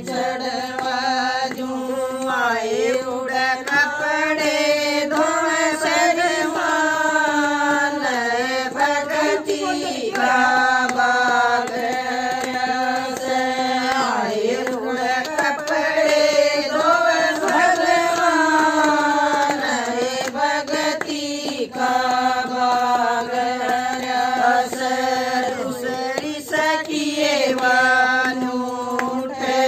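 A group of women singing a Haryanvi devotional folk song (bhajan) together in one long melodic line, with hand claps keeping time.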